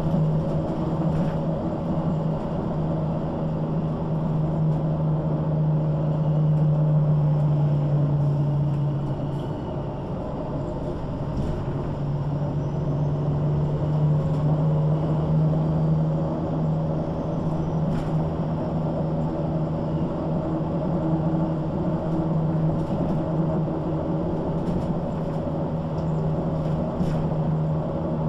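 MAN NG 313 articulated city bus with ZF automatic gearbox driving along: a steady, even drone from the engine and driveline, with light rattles. About ten seconds in the drone eases off briefly, as when the bus lets off or changes gear, then picks up again.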